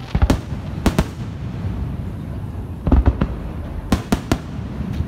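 Aerial firework shells bursting overhead: about six sharp bangs at uneven intervals, over a steady low background din.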